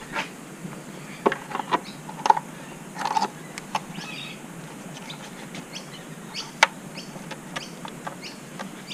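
Scattered clicks and knocks of hands working the rubber crankcase breather hose and its plastic fittings off the top of a Mitsubishi Triton's diesel engine.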